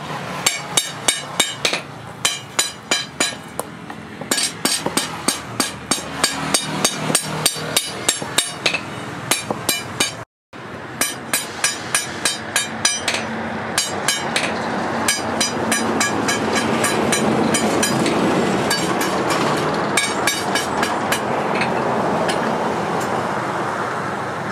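Forged kitchen knife chopping raw chicken on a wooden chopping board: sharp, even knocks about three a second. About halfway through, the knocks thin out under a steady rushing noise.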